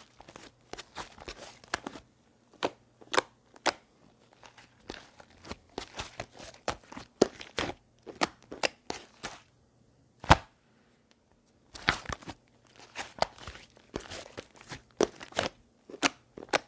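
Slime being squeezed and worked by hand, giving an irregular run of sharp crackling pops and clicks.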